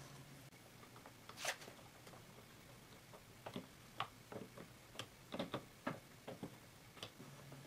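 Faint, irregular clicks and clinks of hand tools, a nut driver and pliers worked at a metal worm-drive hose clamp. There is a single click about a second and a half in, and a quick run of small clicks in the second half.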